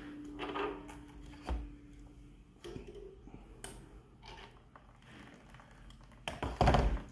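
Small metallic clicks and taps as check-valve parts are handled and fitted into a pressure washer pump's brass manifold with a hand tool. A louder rattling clatter comes near the end.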